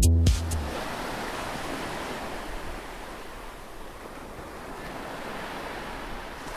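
Electronic background music cuts off just after the start, leaving the steady rush of sea surf against a rocky shore, with some wind.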